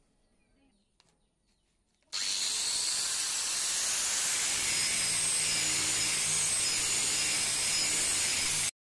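Angle grinder grinding a steel chisel: a loud, steady, high-pitched grinding hiss that starts suddenly about two seconds in and stops abruptly near the end.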